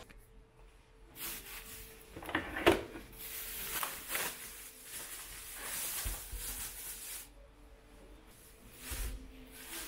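Thin plastic produce bag rustling and crinkling as it is pulled off a large head of cauliflower, for several seconds from about a second in. A couple of dull thumps follow, the later one near the end.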